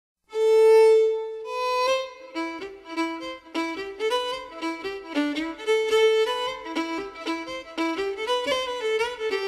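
Fiddle music that begins about a third of a second in with a long held note, then breaks into a quick tune of rapid, separate notes.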